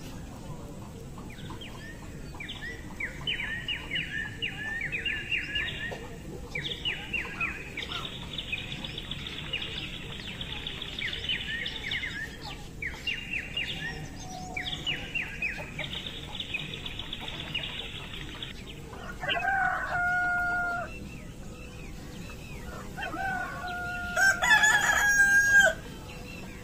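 A rooster crows twice near the end, the second crow louder, after a stretch of small birds calling in quick repeated chirping phrases.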